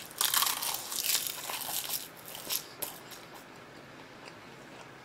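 Crisp sheet of roasted seaweed (gim) being bitten and chewed: a dense run of dry crackling crunches, loudest in the first second and dying away after about three seconds into a few scattered clicks.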